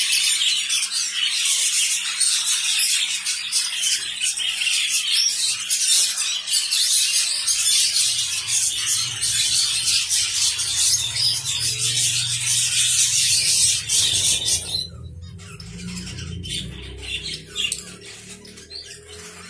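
Many Gouldian finches in an aviary chattering at once: a dense, continuous mass of short high chirps and calls. About 15 s in, the chatter drops off abruptly to sparser, quieter chirps, with a low rumble underneath through the middle stretch.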